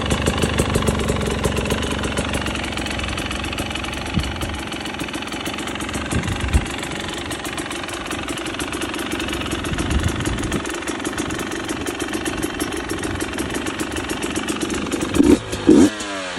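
2023 GasGas EC250's two-stroke single-cylinder engine, breathing through a full FMF exhaust, idling steadily. Near the end it is revved in a few quick throttle blips.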